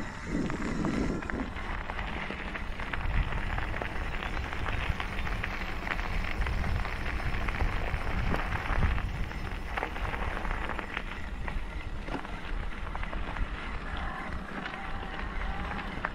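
Bike tyres rolling over a gravel track, with a steady crunching and crackling of loose stones, and wind rumbling on the microphone.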